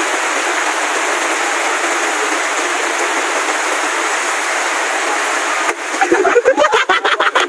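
Steady, even hiss of heavy rain. About six seconds in, voices break in and the hiss turns choppy.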